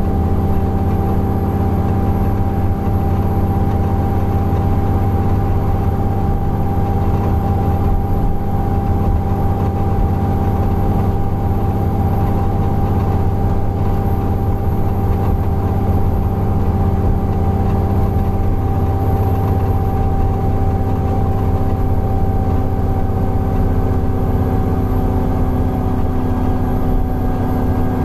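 Alexander Dennis Enviro 400 bus engine running steadily: a low drone with a steady high tone over it, the 'wheeze' this bus is known for. About two-thirds of the way through, the engine note shifts slightly.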